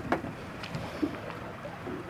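Steady low noise of a sportfishing boat on the open sea, with two sharp clicks, one just after the start and one about a second in.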